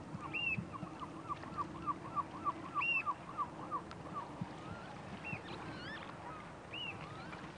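Birds calling: a quick run of short, repeated notes, about four a second, for the first few seconds, with a few higher single calls scattered through.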